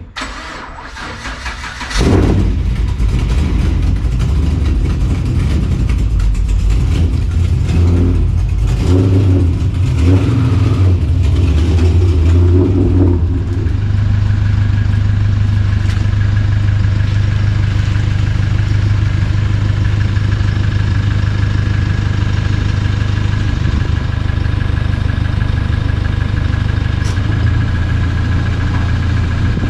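A car engine starts about two seconds in, revs unevenly for several seconds, then settles into a steady idle.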